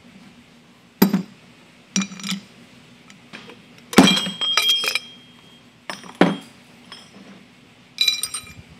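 Bridgeport mill spindle's steel shaft being jounced: struck end-first against a hard surface to knock a bearing off it, giving sharp, ringing metal knocks. About seven irregular knocks, the loudest about four seconds in.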